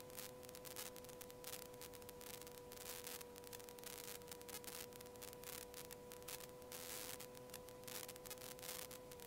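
Faint, steady hum with a weaker overtone and a crackle of static: the Rans S-6S Coyote II light aircraft's engine drone in flight, picked up through the cockpit intercom audio.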